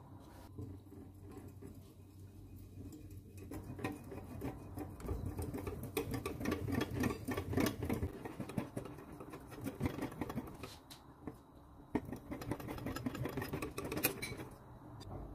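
Wire whisk beating cocoa powder and water in a glass bowl: rapid scraping and clinking of the wires against the glass. It starts a few seconds in, dips briefly about two-thirds through, and stops near the end.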